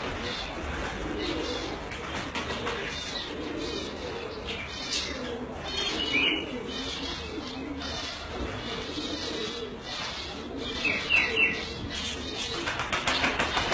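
Many domestic pigeons cooing together in a steady low murmur. A few short high chirps come through about six seconds in and again near eleven seconds.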